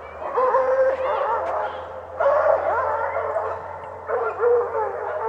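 Four drawn-out, wavering animal cries, each lasting about one to two seconds, with short pauses between them.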